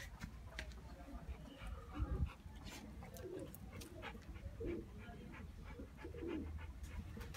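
Pigeons cooing in short, low, repeated calls, with a dull thump about two seconds in.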